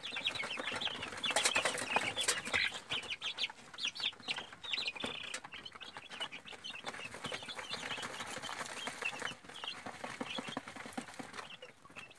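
A brood of young free-range chicks peeping continuously: many short, high cheeps overlapping one another, thinning out near the end.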